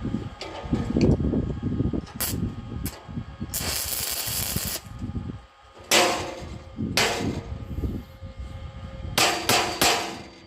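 Steel parts being knocked and struck together: a series of sharp metallic clanks, some ringing on after the hit, with three quick ones near the end. A burst of hissing noise lasts about a second in the middle.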